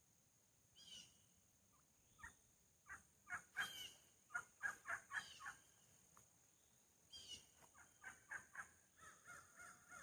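Faint birdsong: birds chirping in quick runs of short calls, with two falling calls, one about a second in and one about seven seconds in. Under it runs a steady high-pitched hum of insects.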